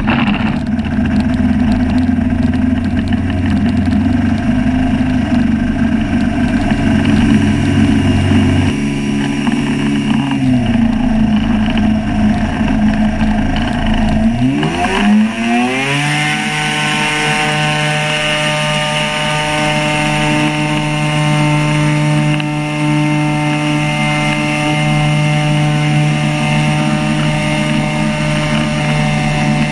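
Engine and pusher propeller of an ultralight flying inflatable boat running steadily, then throttled up about halfway through with a quickly rising pitch and held at a higher, steady note for the takeoff run and climb-out.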